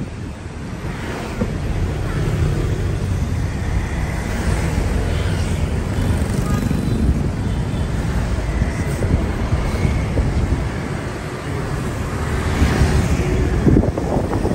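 Traffic noise: a steady rumble of road vehicles.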